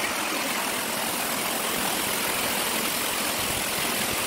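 Rushing stream water, a steady, unbroken hiss.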